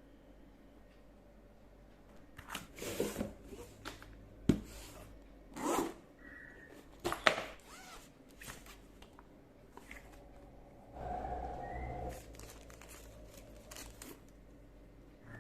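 Packaging and drone parts being handled during an unboxing: irregular rustles, scrapes and sharp clicks, with a longer rasping sound, like a zip or tape, about eleven seconds in.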